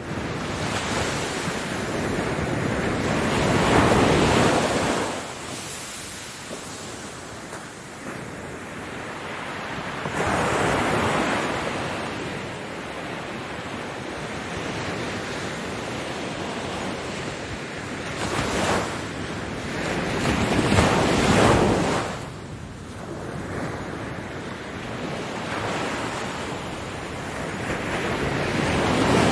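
Ocean waves breaking and washing on the shore, a steady rush of surf that swells with each wave every several seconds, loudest about four seconds in, around ten, nineteen and twenty-one seconds, and again near the end.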